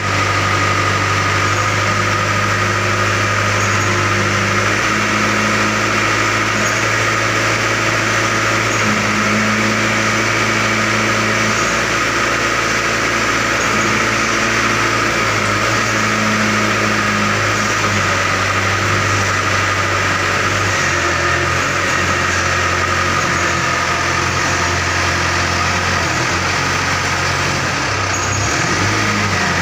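SYZG ZL930 wheel loader's diesel engine idling steadily, its low hum shifting slightly a few times.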